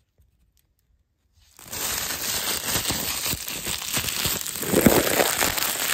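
Clear plastic wrap crinkled and crumpled in a hand right against the microphone, starting about a second and a half in: a loud, dense run of crackles.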